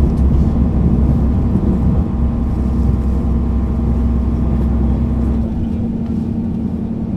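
Diesel engine of a 1966 MAN Schienenbus (rail bus) idling steadily at a standstill, a deep rumble under a constant hum. About five and a half seconds in, the deepest rumble drops away and the sound gets a little quieter while the hum carries on.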